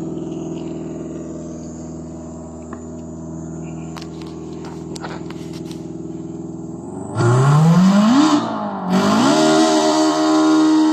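An engine running steadily at low revs, then revved hard about seven seconds in: the pitch climbs, dips briefly, and climbs again to hold at a higher, louder steady note.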